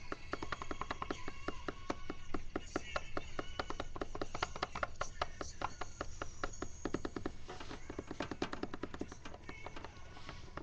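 Electronic music played live from a grid pad controller: a fast run of short, chopped sample hits, many to the second.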